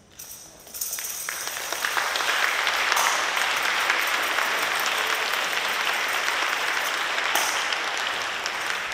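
Audience applauding, rising about a second in and starting to fade near the end.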